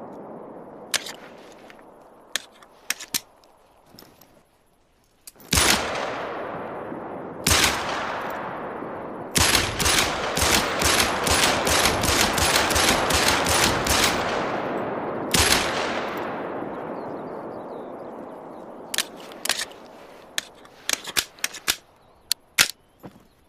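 10mm Glock pistol firing: two single shots with long echoing tails, then a rapid string of shots lasting about four and a half seconds, then one more shot. Sharp clicks come in the first few seconds and again near the end.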